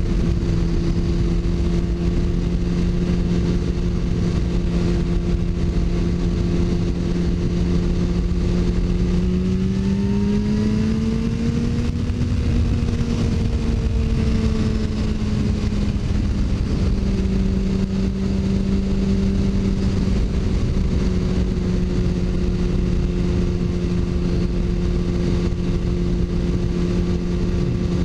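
Sport bike's inline-four engine running at a steady cruise, heard from the rider's camera with wind rumbling on the microphone. About a third of the way in the engine pitch rises as the revs climb, then falls back a few seconds later and holds steady again.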